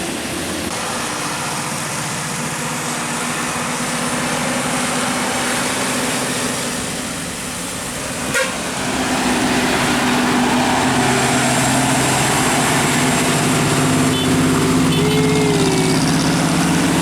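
Large bus engine running close by over street noise, getting louder after a short sharp knock about eight seconds in.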